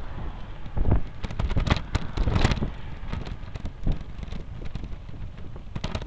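Wind buffeting the microphone of a bicycle-mounted camera while riding, with a steady low rumble and many short rattling knocks from the camera shaking over rough pavement.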